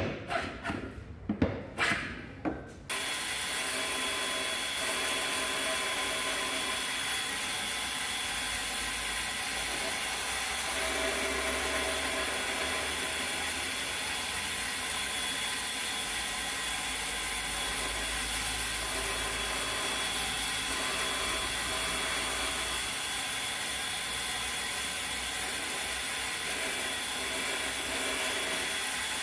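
A few knocks on wood, then about three seconds in an electric drill powering a homemade wood lathe starts and runs steadily with a constant high whine.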